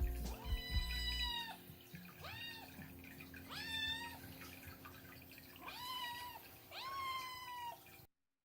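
A kitten meowing insistently, five separate cries with a few pauses between them, calling for attention. A low rumbling noise runs under the first cry, and the sound cuts off abruptly near the end.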